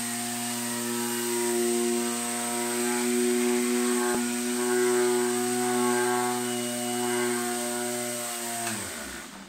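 Electric sheet sander with a dust box running steadily with its pad on a wooden board, with one sharp click about four seconds in. Near the end it is switched off and its hum drops in pitch as the motor winds down to a stop.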